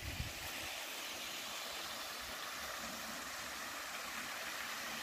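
Steady rush of water spilling through the gates of a concrete sluice dam, an even hiss with no change.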